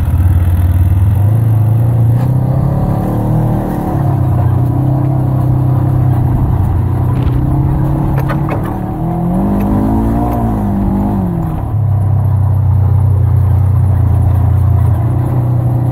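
Side-by-side UTV engine running steadily while driving over rough ground, its note climbing and then dropping once about two-thirds of the way through.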